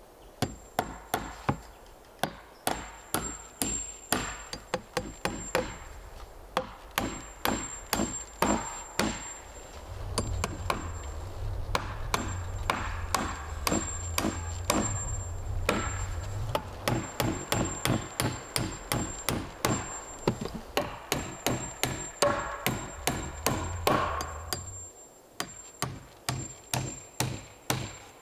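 Hammer driving nails into wooden boards: quick, even blows, about two to three a second, in runs with short pauses.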